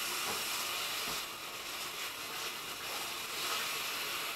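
Pork and vegetable stir-fry sizzling steadily in a stainless steel pan on the stove, a soft even hiss.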